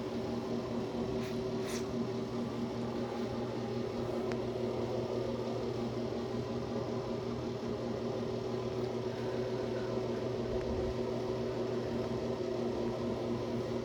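Steady mechanical hum, like a fan or appliance motor, running at an even level. Two faint brief hisses come about a second and a half in.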